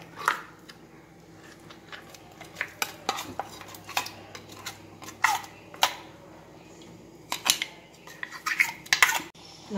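Metal spoon and steel mixer-grinder jar clinking and scraping as thick ground roasted-coconut paste is scraped out into a pot of mutton curry: irregular sharp clinks, a few of them ringing briefly.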